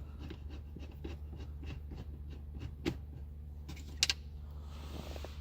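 Screwdriver turning out a Phillips screw from car interior trim: a quick run of small, even clicks and scrapes, with a few louder clicks about three to four seconds in.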